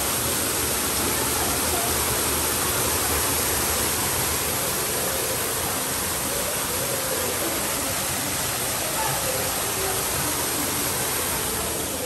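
Steady, even rush of a waterfall.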